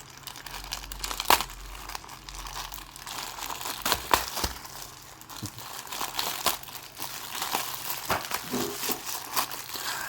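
Packaging being opened by hand: wrapping crinkling and rustling with irregular sharp crackles and snaps, the loudest about a second in and about four seconds in.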